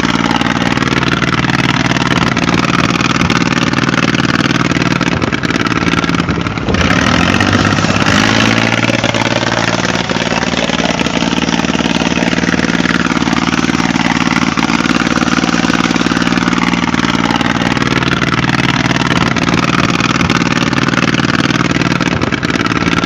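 A motor running steadily under a constant drone, with its pitch dipping and then rising again about seven seconds in.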